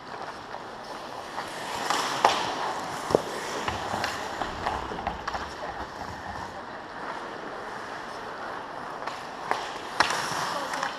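Ice hockey play at the net: skate blades scraping and carving the ice, with sharp cracks of stick and puck about two seconds in, again about three seconds in, and near the end.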